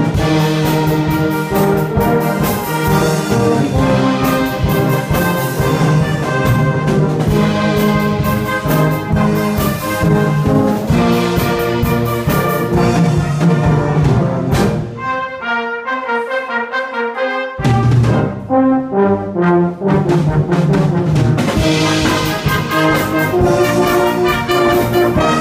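A brass band of trombones, euphonium, tenor horns and tuba plays together, backed by a drum kit keeping a steady beat. About fifteen seconds in, the low brass and drums drop out for a couple of seconds while a few higher instruments play a short passage alone, then the full band comes back in.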